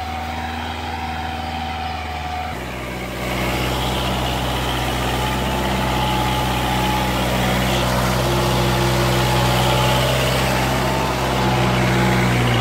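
Kubota 4x4 tractor's diesel engine running steadily under load as it pulls a mounted plough through the soil. About two and a half seconds in, the engine sound abruptly grows louder and deeper and then holds steady.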